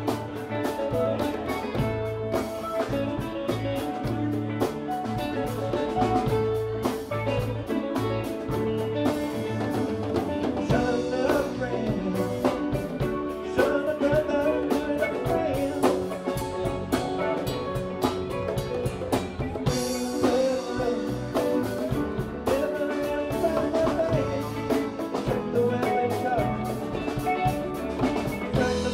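Live rock band playing an instrumental jam: electric guitars over drum kit and congas, with steady, dense music throughout.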